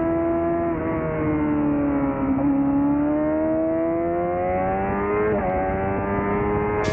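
Suzuki GSX-R600 inline-four engine at speed on a track: the note sags gently through a corner, then climbs steadily under acceleration, with a quick upshift about five seconds in before it climbs again. Wind noise runs underneath.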